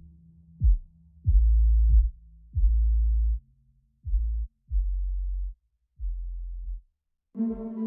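Background electronic music: a run of deep bass hits, each opening with a sharp falling thump, growing quieter toward the end. A few seconds from the end, a new piece with sustained synth tones begins.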